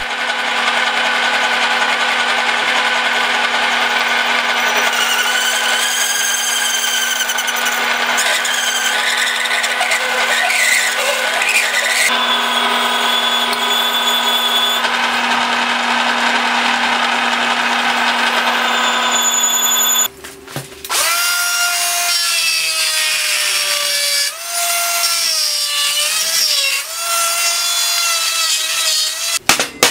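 A bi-metal hole saw in a drill spindle cutting through a thick steel disc: a steady machine hum with ringing, squealing tones from the cut. About twenty seconds in it switches to a handheld power tool working the disc's edge, its whine dipping and rising as it is pressed on.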